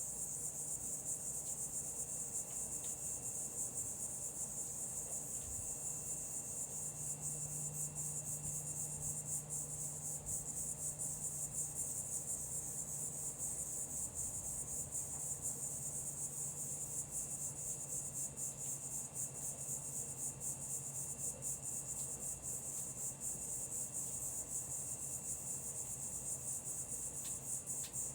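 A steady chorus of insects: a high-pitched, fast-pulsing trill that never lets up. A faint low drone sits underneath it and swells slightly for several seconds in the first half.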